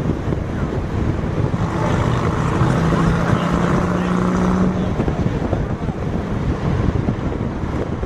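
Car driving slowly with its engine running and wind buffeting the microphone. A steady low drone sounds for about two seconds midway.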